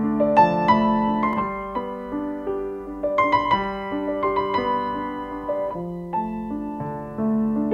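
Piano music: a melody of held notes over sustained lower notes, with several sharper struck notes standing out.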